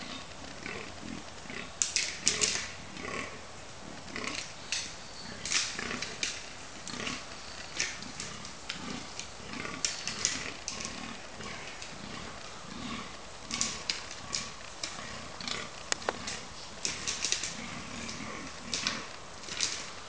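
Fallow deer bucks fighting in the rut: their antlers clatter and knock together in irregular bursts of sharp clicks, with low grunting groans in between.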